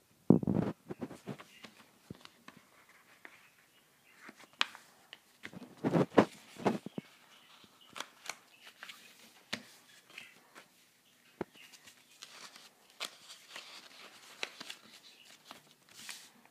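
A sheet of brown paper being folded and creased by hand: irregular rustling and sharp crackles, with louder bursts of handling near the start and about six seconds in.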